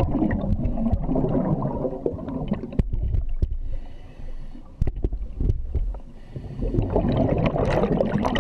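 Scuba breathing through a regulator underwater: exhaled bubbles burble in two long bursts, one at the start and one from about seven seconds in, with a quieter stretch of scattered clicks between.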